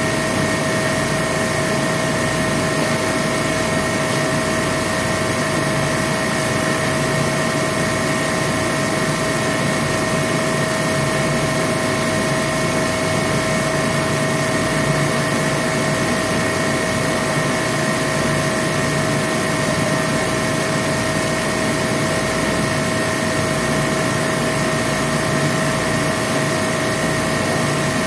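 A machine running steadily: an even rushing noise with a constant whine in it, unchanging throughout.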